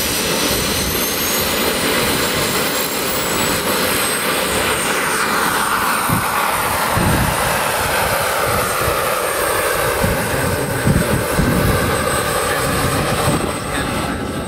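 Radio-controlled scale model Mi-24 Hind helicopter powering up and lifting off: a high engine whine rises in pitch over the first few seconds. From about six seconds in, the rotor blades thud as it climbs and flies off.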